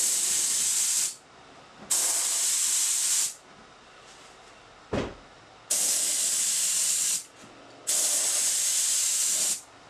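HVLP spray gun fed by an air compressor, spraying urethane finish in four hissing bursts of a second or so each as the trigger is pulled and released. A brief thump comes about halfway through.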